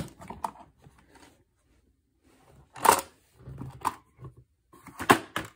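Handling noise from a small tube caddy being picked up and opened: scattered clicks and taps, a brief scuff about three seconds in, and a quick run of sharp clicks near the end.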